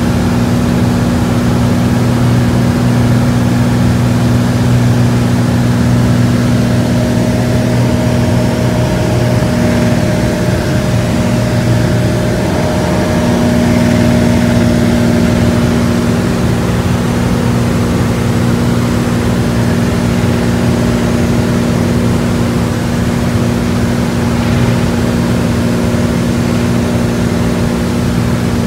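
Cessna 182A Skylane's six-cylinder Continental O-470 engine and propeller running steadily with an even, low drone.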